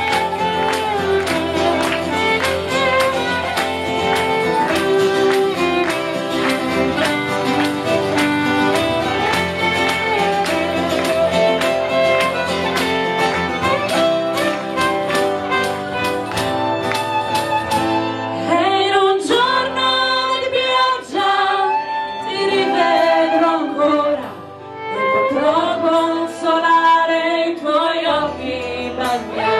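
A live folk band plays: fiddle and strummed acoustic guitar carry an instrumental passage with an even rhythm. About two-thirds of the way in, women's voices come in singing the melody over the fiddle.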